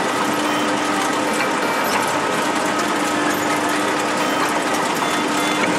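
Industrial twin-shaft shredder running empty, its steel cutter discs turning with a steady mechanical rattle over a constant motor hum.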